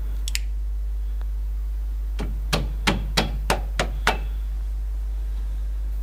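Seven sharp knocks in quick succession, about three a second, as a Nissan Almera's front brake caliper is knocked down into place over the new brake pads, over a steady low hum.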